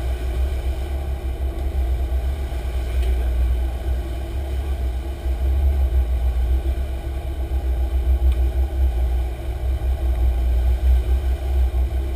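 Sport-fishing boat under way at speed: a steady engine drone under a heavy, fluctuating low rumble of wind and rushing water.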